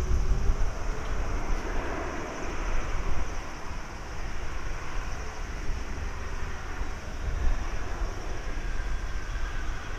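Airbus A320neo's Pratt & Whitney PW1100G geared turbofan engines running at low thrust as the airliner taxis off the runway after landing. It is a steady jet hum with faint drifting tones, over a low, uneven rumble.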